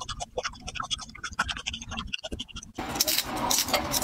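Crisp crunching of a raw garlic clove being chewed, a quick run of sharp crunches. About three seconds in it switches abruptly to louder, denser crackling and rustling of dry, papery garlic skin being peeled by hand.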